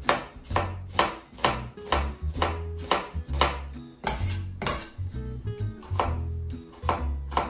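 Background music with a steady beat, about two strokes a second, and a bass line, over a chef's knife dicing red onion on a wooden chopping board.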